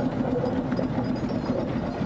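Fowler B5 steam road locomotive running steadily as it drives slowly past.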